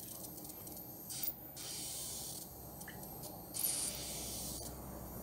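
Air leaking from a puncture in an inflated bicycle inner tube, fizzing and hissing faintly through the water spread over the hole, with a couple of brief louder rasps.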